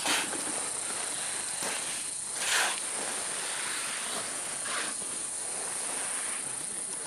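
Steady high-pitched insect chorus, with a few short scuffs or scrapes on sand, the loudest about two and a half seconds in.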